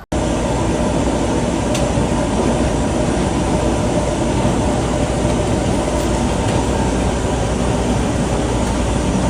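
Steady loud rumbling noise with a deep low hum, unchanging throughout.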